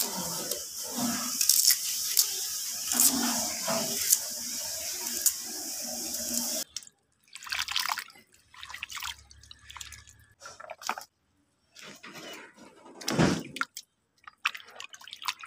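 Hog plums being peeled against a curved iron blade, short scraping strokes over a steady hiss. About seven seconds in, this gives way to hands splashing and sloshing cut hog plum pieces in a plastic basin of water, in separate splashes with pauses, the biggest near the end.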